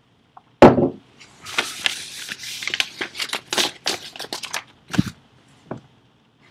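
Handling noise: a loud thump just over half a second in, then about three seconds of rustling broken by sharp clicks, and a sharp knock about five seconds in.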